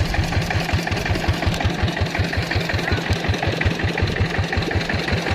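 Engine of a kelotok river boat running steadily, with an even low beat of about seven or eight pulses a second.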